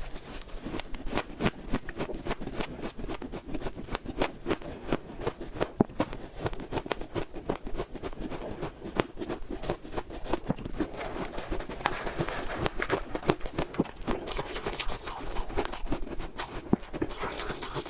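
Close-miked chewing of freezer frost: a dense, irregular run of crisp crunches and squeaky crackles as mouthfuls of frost are bitten and ground.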